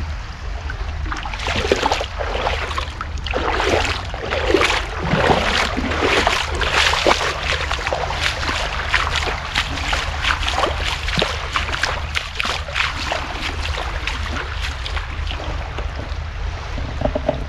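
Shallow river water splashing and sloshing in irregular bursts as someone wades through it barefoot, over a steady low wind rumble on the microphone.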